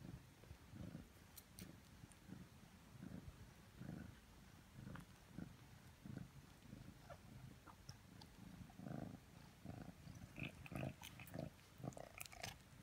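Savannah cat purring faintly, a low purr that swells and fades about once a second with each breath. From about ten seconds in, small wet clicks and smacks from the nursing kittens join it.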